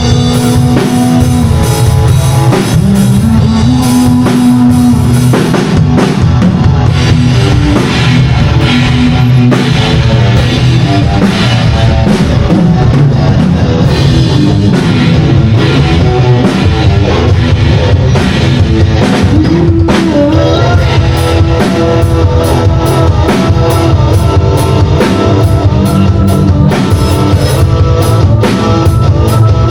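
A rock band playing loudly, with a drum kit keeping a steady beat under electric guitars and a melodic lead line, as heard during a live sound check.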